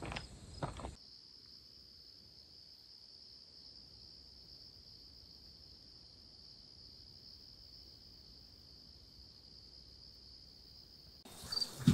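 Crickets trilling in one steady, unbroken high tone. Dry crunching clicks come in the first second, and near the end a rustle and a low thump break in.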